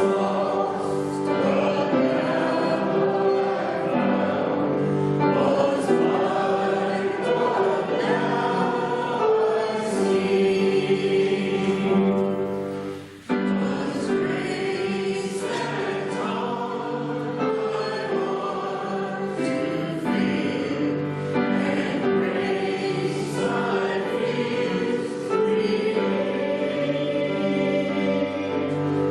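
Church congregation singing a hymn together, with a brief sudden drop in the sound about thirteen seconds in.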